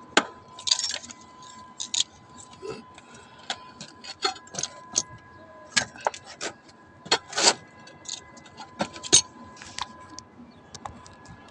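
Irregular clicks, taps and rustles of a phone camera being handled and moved about, over a faint steady high tone.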